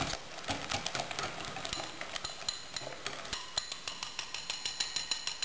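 A wire balloon whisk beating a thick cream of egg yolks and grated pecorino in a glass bowl. Its wires click against the glass in a rapid, steady rhythm of several strokes a second.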